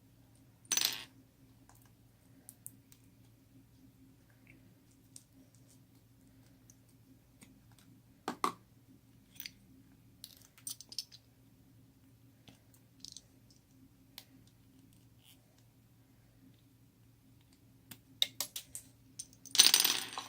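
Slime and small hard add-ins being handled and mixed, giving scattered sharp clicks and short crackly bursts. The loudest and longest burst comes near the end.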